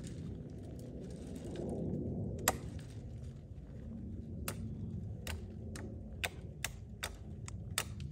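Dry twigs and branches cracking and snapping as they are handled: one sharp snap about two and a half seconds in, then a run of smaller cracks in the second half, over a steady low rumble.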